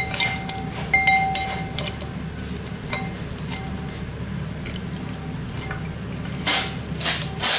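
Metal engine parts and tools clinking against each other, two of the strikes ringing on briefly with a clear tone; near the end, two short rushes of noise.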